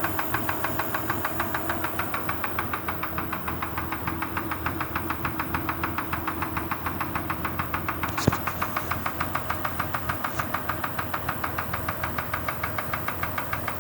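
Kia Sorento engine running with a rapid, even knock, which the owner says sounds like piston pin knock. A single sharper click stands out about 8 seconds in.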